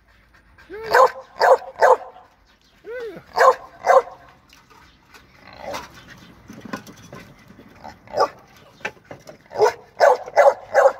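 Pit bull-type dogs barking in short runs of two to four quick, fairly high barks, with a quieter lull in the middle.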